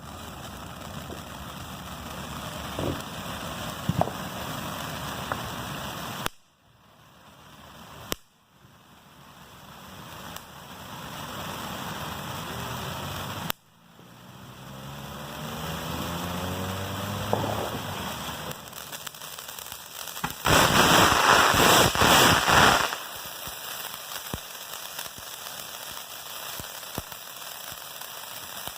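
Fireworks going off: a steady crackling hiss with a few sharp pops, then a loud burst of dense crackling lasting about two seconds, a little past two-thirds of the way through.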